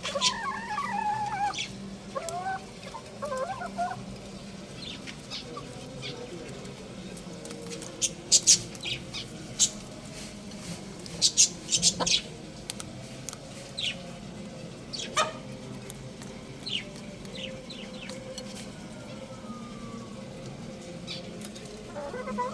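Young rooster calling with wavering clucks at the start, then a scatter of short, high chirps, loudest and most frequent about eight to twelve seconds in.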